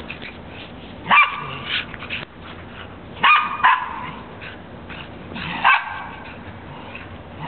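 Terrier barking during a play chase, about five sharp barks spaced a second or two apart.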